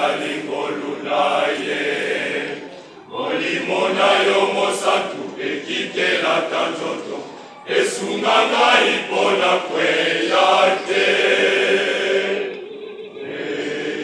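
Youth choir of boys and young men singing together in long phrases, with short pauses for breath about three and eight seconds in and quieter singing near the end.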